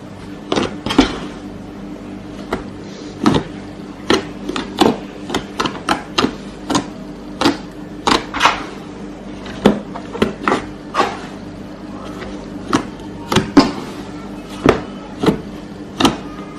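Crunchy fluffy slime being squeezed and pressed, giving off irregular sharp crackles and pops, one to three a second.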